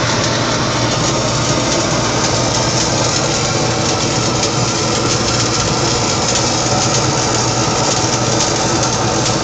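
Stick welding arc crackling and sizzling steadily as an electrode is burned down in one long continuous run, over a steady low hum from the welding machine.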